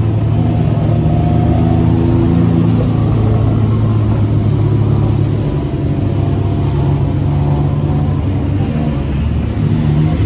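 Tuk-tuk engine running as the three-wheeler drives along. Its pitch shifts about halfway through as the speed changes, over a steady rush of road and wind noise in the open cabin.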